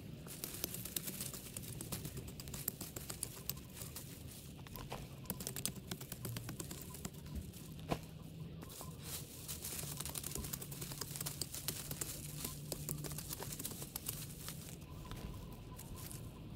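Dense, irregular crackling and rustling of dry plant debris and soil being cleared from a flower bed, with a faint steady low hum underneath.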